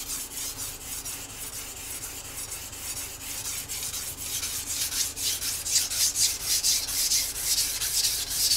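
Stainless sashimi knife's edge stroked rapidly back and forth on a Ha no Kuromaku 1000-grit whetstone: a fast run of gritty scraping strokes, several a second, as the small edge bevel is sharpened. The strokes grow louder about halfway through.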